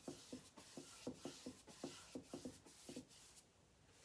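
Paintbrush strokes laying black mineral paint onto a wooden box frame: a quick run of faint brushing swishes, about five or six a second, that stops about three seconds in.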